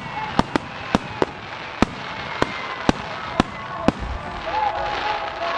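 Starmine fireworks by Chikuhoku Kako, with aerial shells bursting in sharp bangs about twice a second. About four seconds in the bangs stop and give way to a dense hissing crackle.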